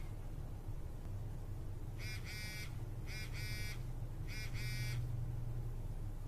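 Short buzzy high chirps in quick pairs, three times about a second apart, over a low steady hum.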